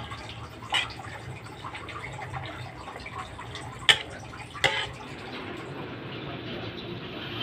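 Pancit canton cooking in a pan with liquid in it: a steady wet cooking noise, broken by three sharp knocks, about a second in, near four seconds and just before five seconds.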